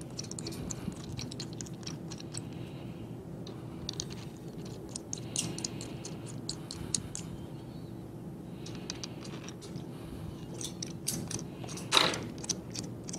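Threaded studs being spun in by hand into the tapped holes in the bottom of a rack and pinion pneumatic actuator: runs of small, quick metallic clicks and ticks, with a louder clack about twelve seconds in.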